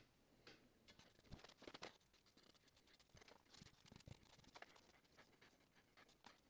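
Near silence: room tone, with a few very faint scattered clicks.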